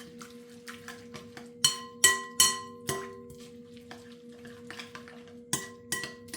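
A spoon stirring thick oatmeal mash in a pot: soft scraping with a few sharp ringing clinks against the pot's side, over a steady low hum.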